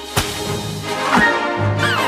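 Cartoon soundtrack music with comic sound effects: a sharp hit just after the start, then falling whistle-like glides about a second in and again near the end.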